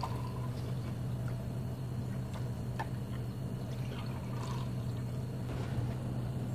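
Frothy milkshake poured from a blender jar into glass tumblers: a faint liquid pour with a few light ticks, over a steady low hum.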